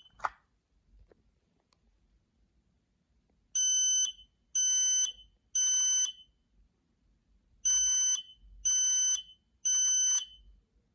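Kidde P3010L photoelectric smoke alarm sounding its test alarm: two rounds of three loud, high-pitched beeps, each about half a second, with a pause between rounds. This is the standard temporal-three fire alarm pattern. The beeping starts about three and a half seconds in.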